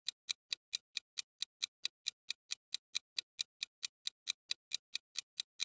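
Clock-style ticking sound effect of a quiz countdown timer: crisp, evenly spaced ticks, about four and a half a second.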